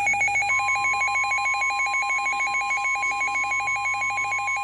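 Weather radio alert: a fast electronic warbling beep, about a dozen pulses a second, with a steady single alert tone near 1 kHz coming in about half a second in. This is the NOAA Weather Radio warning alarm announcing a severe thunderstorm warning.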